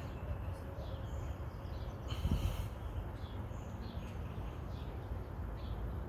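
Small birds chirping here and there over a steady low rumble, with a brief hiss about two seconds in.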